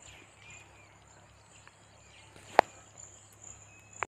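Insects chirring steadily in a high pitch, pulsing a few times a second, with a single sharp click about two and a half seconds in.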